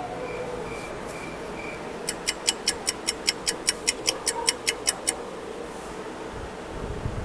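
Fast clock-like ticking, about five ticks a second, starting about two seconds in and stopping suddenly some three seconds later. It is preceded by an evenly pulsed, cricket-like chirp in the first second and a half, over a faint steady hum. Likely comic sound effects laid over a pause.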